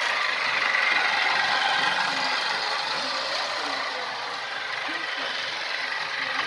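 Battery-powered toy train running on its track: the small electric motor and gears whir steadily.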